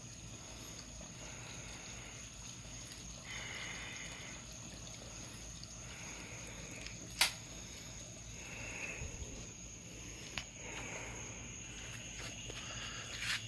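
Gas fire pit table burning with a steady soft hiss. A single sharp click about seven seconds in.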